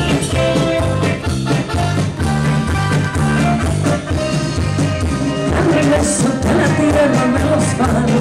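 Upbeat band music with singing over a steady bass and drum beat.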